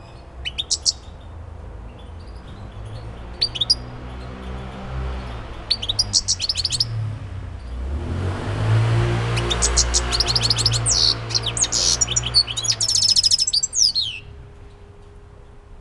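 European goldfinch singing. Short chirping phrases come first, then about halfway through a longer song of rapid twittering trills lasts several seconds.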